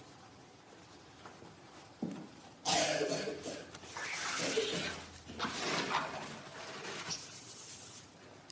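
Rustling and handling noise in three bursts of one to two seconds each, starting about two and a half seconds in.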